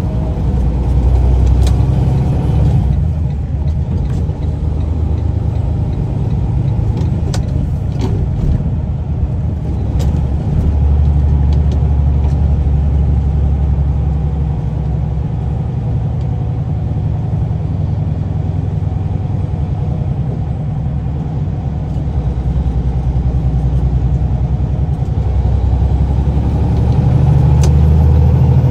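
Semi truck's diesel engine heard from inside the cab: a deep, steady drone that swells and eases several times as the truck pulls onto the freeway. A few scattered clicks sound over it.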